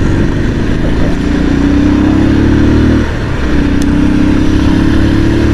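Motorcycle engine running as the bike rides along, its note slowly climbing with speed, briefly dipping about three seconds in, then climbing again.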